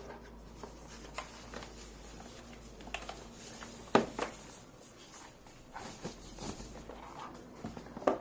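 Handling noise from a keyboard and its packaging: scattered light knocks and rustles, with one sharper knock about four seconds in.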